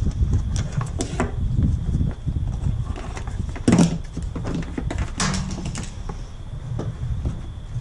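Scattered knocks and clicks of hands working with tools and parts, over a steady low rumble.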